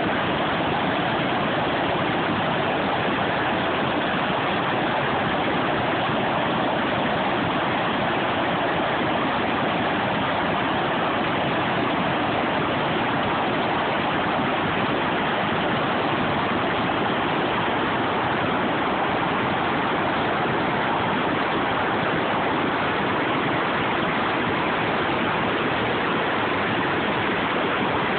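Jacks River water rushing steadily over rocks, a constant even roar with no other sound.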